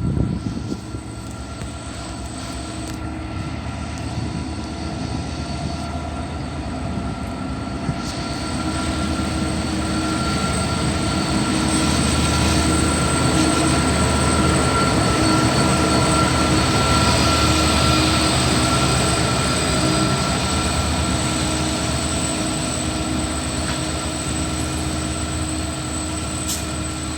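82 class diesel-electric locomotive leading a coal train past at close range: the engine runs and the wheels roll over the rails, with a steady high whine on top. The sound builds to its loudest around the middle, then eases as the coal wagons roll by.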